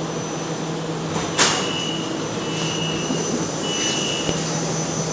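Rail platform screen doors and train doors opening with a sharp clunk about a second and a half in, followed by three long electronic door-chime beeps. Steady loud rushing noise from the stopped train runs under it all.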